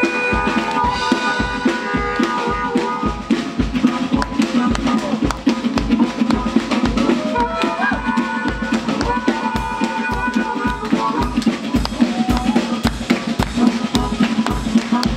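Live band playing an instrumental passage: a harmonica wailing and bending notes over a strummed acoustic guitar and a drum kit, with a steady kick drum beat about twice a second.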